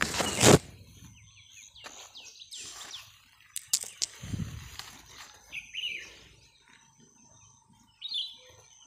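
Small birds chirping in short, falling calls several times over faint outdoor noise. A loud, brief rustle comes first, as pumpkin flowers and leaves are handled close to the microphone, and there are a couple of sharp clicks a little past the middle.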